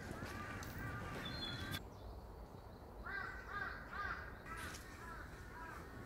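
Birds calling in a rapid series of short, harsh notes, several a second, pausing briefly about two seconds in before starting again.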